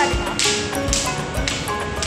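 Background music with a steady beat, about two beats a second: low drum thumps alternating with short snare-like hits over held notes.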